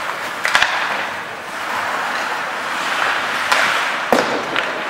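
Ice hockey play on a rink: skate blades scraping the ice, with several sharp clacks of sticks on the puck and on each other. The hardest clack comes about four seconds in, during a scramble at the goal.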